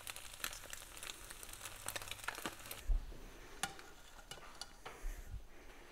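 Faint sizzle of eggs frying in a pan, with a few light clicks. About three seconds in the sizzle drops away, and a few knocks and clicks of a spatula against a plate follow.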